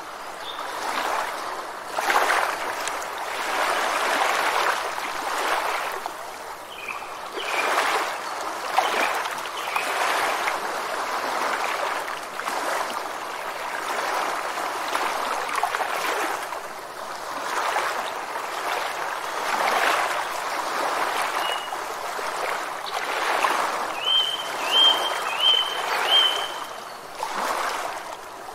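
Surf washing and breaking against rocks in repeated swells, with short high bird chirps here and there and a quick run of four chirps near the end.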